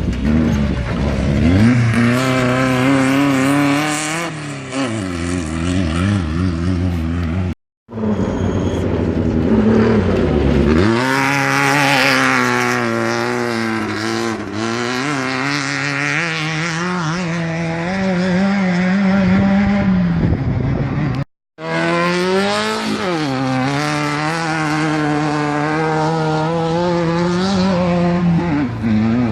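Off-road race vehicle engines running and revving as they pass on a dirt course, the engine pitch rising and falling. The sound breaks off abruptly twice, each time for a fraction of a second.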